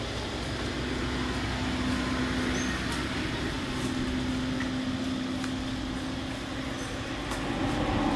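Distant motor vehicle running: a steady low hum over outdoor background noise, with a few faint ticks.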